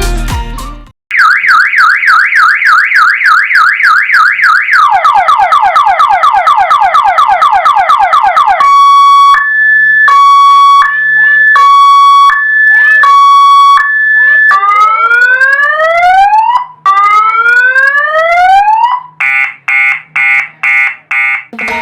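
Electronic DC siren cycling through its tones, starting about a second in: a fast up-and-down warble, quick repeated rising whoops, a two-note hi-lo alternation, two slow rising wails, then rapid beeping near the end.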